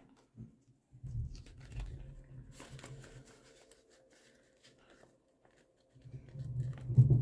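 Dollar bills and the vinyl zipper pouches of a cash-envelope binder being handled: crinkling and rustling with dull handling bumps. This comes in two bursts, about a second in and again near the end.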